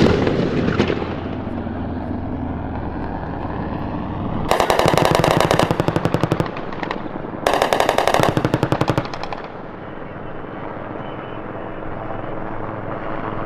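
A blast from rounds striking the target rumbles and dies away at the start. Then an AH-1Z Viper's 20 mm three-barrel rotary cannon fires two bursts of very rapid shots, about two seconds and a second and a half long, with a short gap between, over a steady low rumble.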